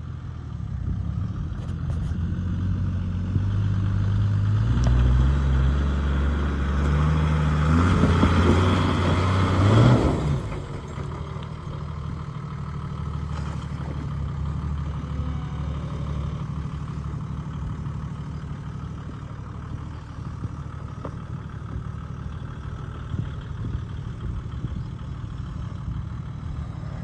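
Toyota 80 Series LandCruiser engine working under load on a steep rocky climb. The revs build over about the first ten seconds to a loud peak, then fall back to a steady, lower running as the truck crawls on.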